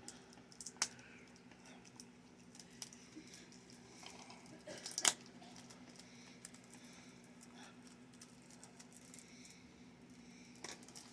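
Faint, scattered clicks and crinkles of fingers picking at the plastic shrink-wrap on a DVD case, with a sharper click about five seconds in, over a faint steady hum.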